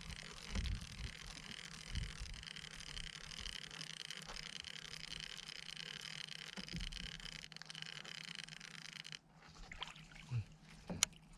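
Water trickling and lapping against a kayak hull as a steady hiss, with a few soft low thumps; the hiss cuts off suddenly about nine seconds in.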